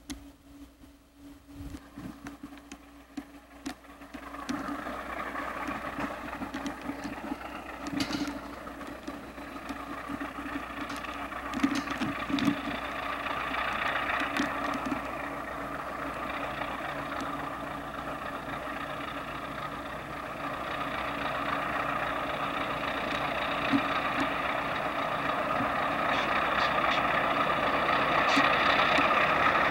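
Trona Railway Baldwin diesel locomotives working a freight train. Their engine sound starts about four seconds in and grows steadily louder as they approach, with a few faint clicks along the way.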